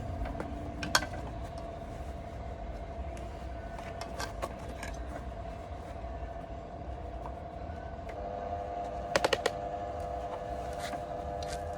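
Homemade microwave-transformer DC welder humming steadily, a second tone joining near the end. A few short sharp cracks come about a second in, around four seconds, and in a quick cluster after nine seconds as the electrode is struck to start the arc.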